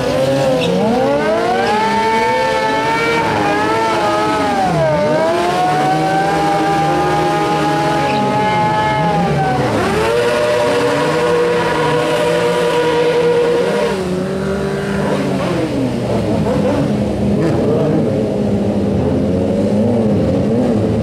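Sport-bike engines revving up and down, with long stretches held at steady high revs, as riders do wheelies and a tyre-smoking burnout.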